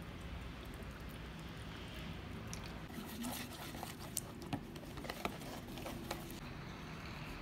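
A thin stream of vinegar poured into a bowl of spices, then a silicone spatula stirring the wet spice paste, scraping with a few light taps against the bowl.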